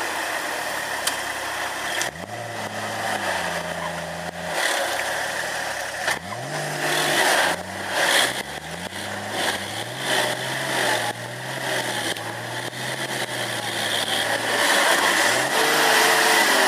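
Nissan Patrol's engine revving hard under load during a tow-strap recovery in mud. The engine note rises sharply about two seconds in and again about six seconds in, holds high revs for several seconds, then rises once more near the end.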